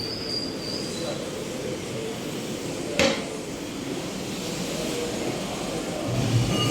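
Steady background traffic noise with a single sharp metallic knock about three seconds in, and a vehicle horn starting to sound near the end.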